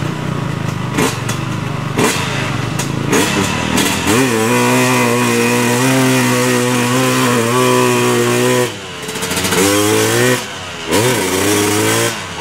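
Small dirt bike engine revving under load, its note held steady for about four seconds. Near the end the engine note drops twice and picks up again as the throttle is let off and opened.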